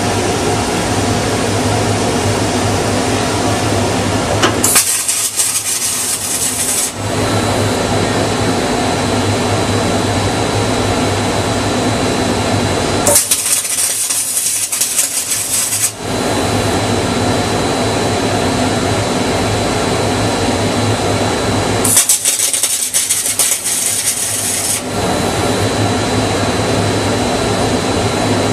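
Automated circle welder running a stitch-weld cycle: a steady machine hum is broken three times, about eight and a half seconds apart, by the hiss of the welding arc lasting two to three seconds each. Each burst is one stitch weld as the torch rotates around the part.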